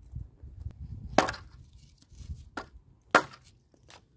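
Firewood sticks being chopped with a blade: three sharp wooden knocks, the first about a second in.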